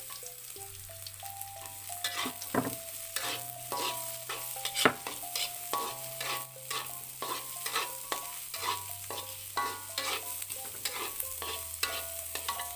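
Chopped shallots, garlic and chilies sizzling in sesame oil in a wok, with a metal spatula scraping and clinking against the pan over and over as they are stirred.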